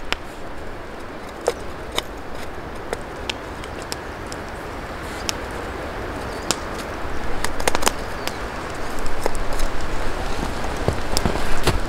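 Snow crunching as hands scoop it up and press it into a small metal pot, with scattered sharp clicks. The crunching grows louder in the second half.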